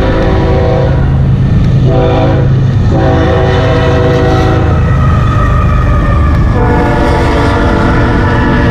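BNSF diesel freight locomotives sounding their air horn in blasts as the train passes: one blast ends about a second in, a short blast follows near two seconds, then a long one, and from about six and a half seconds another long blast at a lower pitch as the locomotive goes by. Underneath is the heavy low rumble of the locomotives and the grain hopper cars rolling past.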